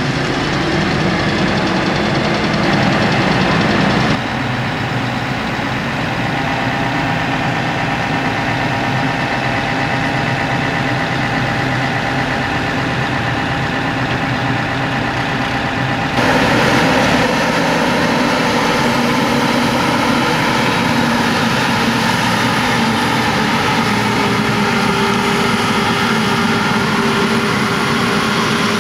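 Diesel farm tractors running while hauling trailers of chopped maize across a field, then a Claas Jaguar 870 self-propelled forage harvester running steadily under load as it chops maize and blows it into a trailer. The sound changes abruptly twice, at about four seconds and about sixteen seconds.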